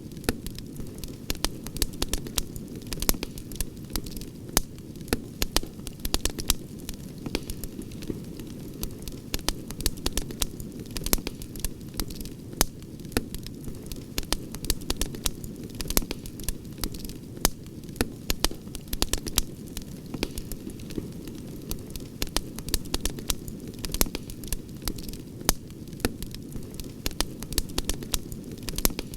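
Wood campfire crackling, with frequent irregular sharp pops and snaps over a steady low rumble of the flames.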